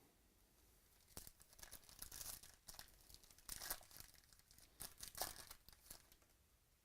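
Faint crinkling and rustling of trading-card packaging as cards are handled, in irregular bursts from about a second in until near the end.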